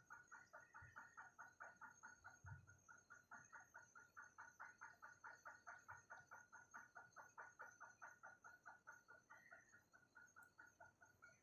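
Faint animal calls repeated evenly and quickly, about four to five a second, over a steady high-pitched tone.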